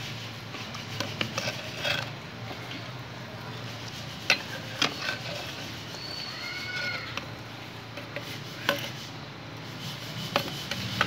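Steel ladle stirring beef korma in a clay handi, knocking and scraping against the pot's sides several times over a steady background hiss. A brief rising-and-falling animal call comes about six seconds in.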